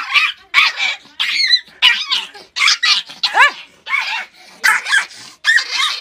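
Small puppy barking in a fast string of short, high yaps, about three a second.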